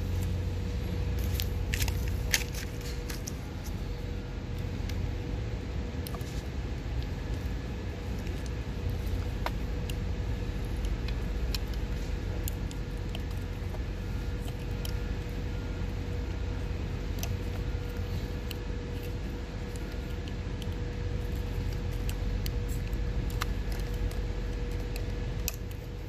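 Small metallic clicks and scrapes of razor blades prying at the cap of an aluminium COMAND controller knob, scattered and irregular, over a steady low background hum.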